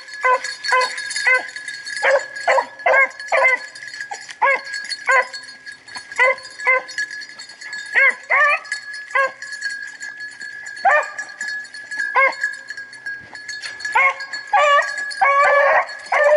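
A pack of small rabbit hounds barking and baying in short, irregular barks as they work a rabbit's scent, with several dogs overlapping in thicker barking near the end.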